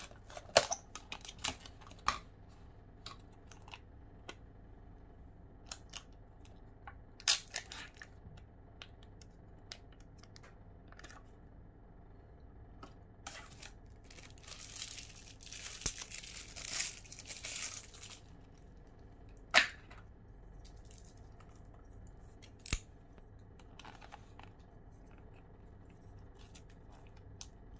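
Thin plastic film and a clear plastic takeaway lid crinkling and tearing as a convenience-store noodle bowl is unwrapped. The handling comes in short bursts with quiet gaps, with a longer rustle about halfway through and a few sharp clicks.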